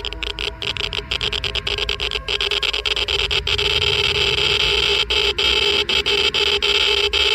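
Geiger counter crackling densely at a very high count rate, a harsh continuous crackle with a few steady electronic tones in it, growing louder about three to four seconds in.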